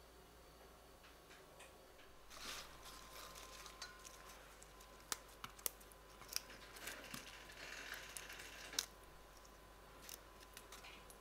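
Faint rustling of fresh mint leaves being plucked from their stems by hand, with scattered light clicks as leaves and fingers touch a stainless steel bowl.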